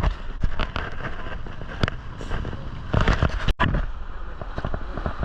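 White water rushing and splashing around a rafting boat, with repeated sharp splashes and wind buffeting the microphone.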